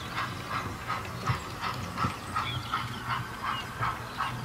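OO gauge model GWR steam locomotive running with its steam sound: an even beat of about three chuffs a second over a low steady hum.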